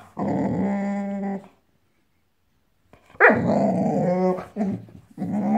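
Boxador puppy growling in drawn-out, grumbling spells: one of about a second and a half, a pause, a second one of similar length, and another starting near the end.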